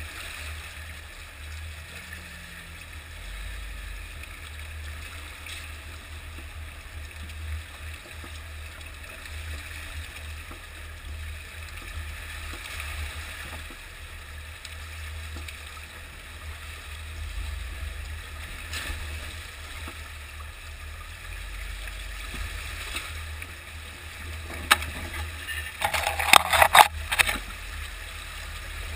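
Creek water rushing and splashing around the tyres of a Jeep JK driving through a shallow, rocky stream bed, over a steady low rumble. Near the end comes a quick cluster of loud knocks.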